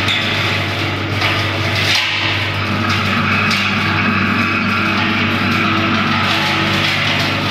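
Electric garden waste shredder running under load as leafy green branches are fed into its hopper and chopped. There is a steady motor hum with a dense shredding noise, and a few sharp cracks as stems are cut.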